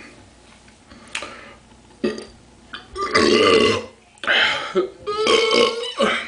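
A man belching loudly three times in quick succession, long drawn-out burps starting about three seconds in, the first the longest and loudest. The belches are brought up by gas from chugging carbonated drinks.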